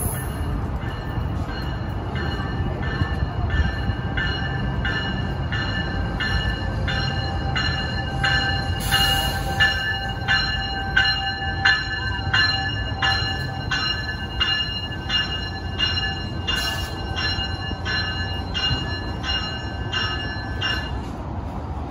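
Tri-Rail bi-level push-pull commuter train arriving at a station platform, its bell ringing about twice a second over the low rumble of the train. The train is loudest as the cab car draws past, about ten seconds in, with a short hiss then.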